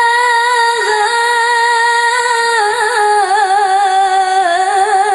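A woman singing an Arabic devotional song as background music. She holds one long note that breaks into a wavering, ornamented run about three seconds in and slowly falls.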